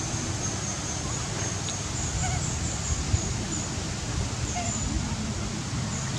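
Outdoor ambience: a steady high-pitched drone, a few short faint squeaky calls and a low rumble, with one sharp click about three seconds in.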